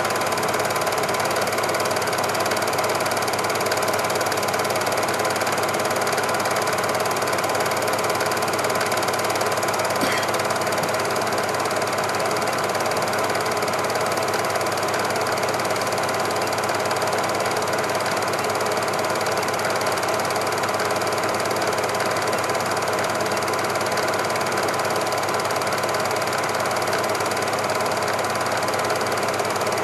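Cine film projector running: a steady mechanical whirr with a fast, even clatter that stays the same throughout.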